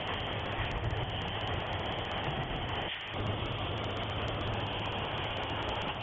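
Steady running of factory machinery, a continuous mechanical noise over a low hum, dipping briefly about three seconds in.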